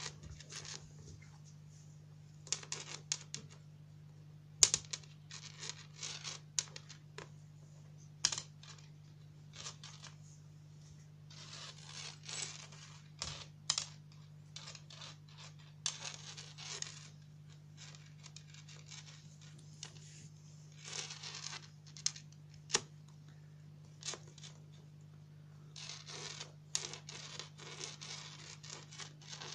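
Kittens pawing and batting at a plastic ball-track toy: irregular clicks, rattles and scratches of paws and claws on plastic and rug, in short flurries. A steady low hum runs underneath.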